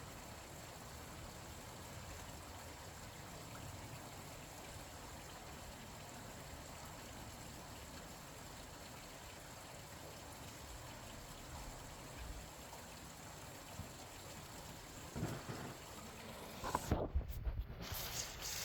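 Steady rain falling, an even hiss with no pattern. Near the end a few louder, irregular knocks and rustles break in.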